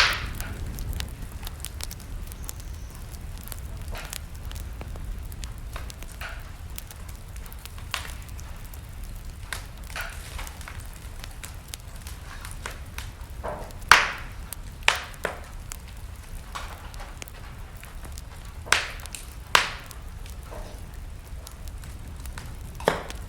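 Wood fire burning in a fireplace, with a steady low rumble and irregular sharp crackles and pops, a handful of them standing out loud.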